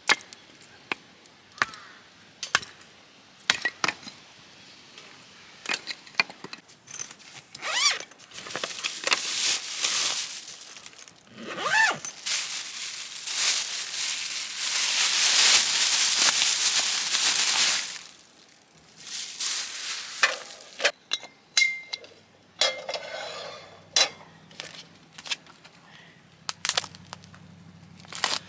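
Camp cooking and eating sounds: repeated clinks and knocks of utensils and dishes, with a steady hiss lasting about six seconds in the middle.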